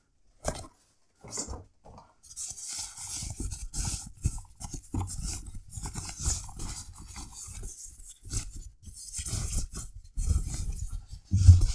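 Packaging of an electric shaver's cleaning station being handled and opened: irregular rustling, scraping and crinkling of cardboard and plastic wrap, with soft knocks.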